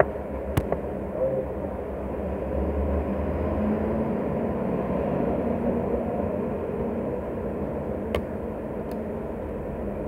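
Steady low background rumble and hum, with a few small sharp clicks of a screwdriver and fingers on the tablet's parts.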